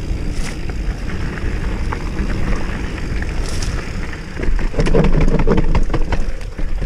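2019 GT Sensor Expert mountain bike riding downhill on a dirt trail: tyre rumble and wind on the microphone, with a burst of clattering and rattling from about four and a half seconds in as the bike hits rougher ground.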